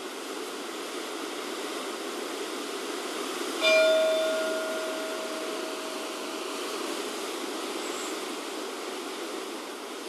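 A single stroke of a church bell a little over a third of the way in, its clear tone ringing out and fading over about three seconds. Steady wind rushes in the trees throughout.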